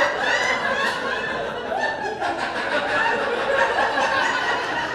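People laughing and chuckling, with voices mixed in.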